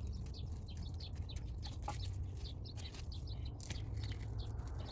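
Small birds chirping, many short high chirps scattered throughout, over a low steady rumble.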